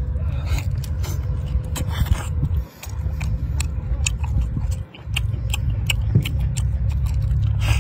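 A person biting and chewing cat's eye snail meat pulled from its shell, with many small wet smacks and clicks close to the microphone. Under it runs a steady low rumble that drops out briefly twice.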